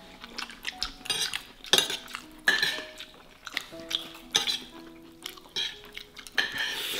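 Metal fork clinking and scraping against a plate while eating, a scatter of short clicks and knocks. Light background music plays under it, a simple melody of short held notes.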